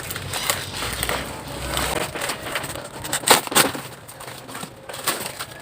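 A parcel's packaging being handled and torn open by hand: irregular crackling, rustling and tearing, with a few louder rips about three seconds in.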